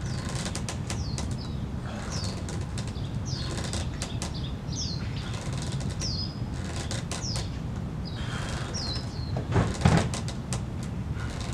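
A bird calling over and over with short, high, falling chirps, about one a second, over a steady low background rumble, with scattered faint clicks. A brief louder low thump comes near the end.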